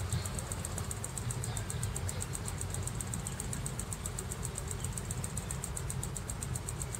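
A low, steady engine-like rumble, as of an idling motor, with a fast, even high-pitched pulsing over it.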